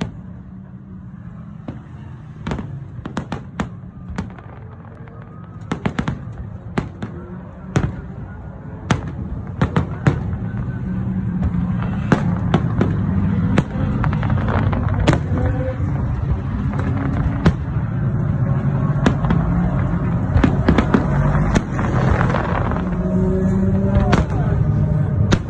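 Fireworks display: sharp bangs and pops at irregular intervals over a steady low rumble, the whole growing louder and the bangs coming thicker from about halfway through.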